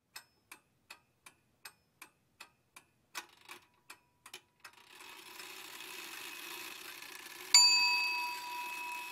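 Title-animation sound effects: a run of evenly spaced clock-like ticks, about three a second, for the first four to five seconds, then a faint rising hiss, and a single bright bell-like ding about seven and a half seconds in that rings on and slowly fades.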